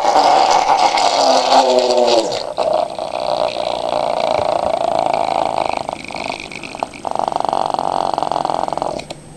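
Broken Powerball gyroscopic wrist trainer, its rotor spinning with a loud rattling whirr. The pitch falls as it slows about two seconds in. It picks up again into a buzzing rattle near the end and then stops.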